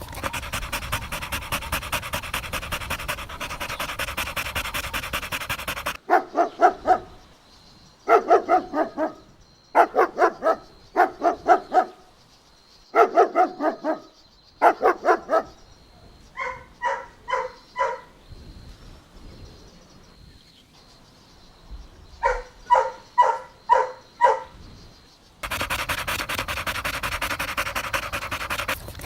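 A dog panting fast and steadily. About six seconds in, the panting cuts to barking: six quick clusters of several barks each, then two runs of higher, evenly spaced yipping barks. The fast panting returns near the end.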